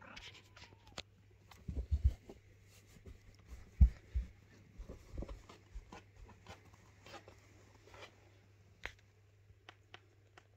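Newborn kittens suckling at their mother cat: a scatter of small wet clicks and smacks over a faint rustle of cloth bedding. A few soft low thumps come about two and four seconds in.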